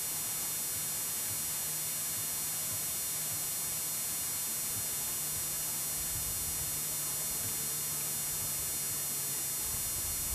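Steady hiss and hum of an old camcorder's recording, with no distinct event. A low rumble joins about six seconds in.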